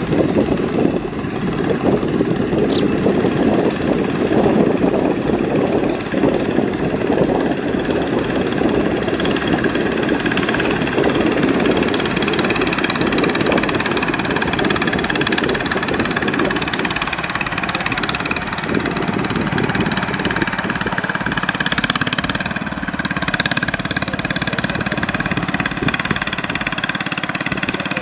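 Small long-tail boat engine running steadily under load, driving the propeller shaft through the water.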